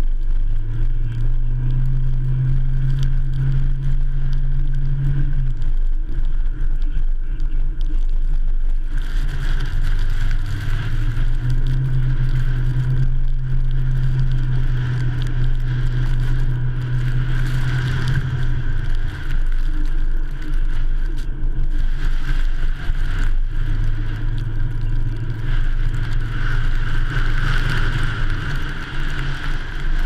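Ford F-150 pickup driving on a snow-covered road, heard from a camera mounted on its hood: a steady low rumble of engine and tyre noise, with the engine hum shifting in pitch several times as the truck's speed changes.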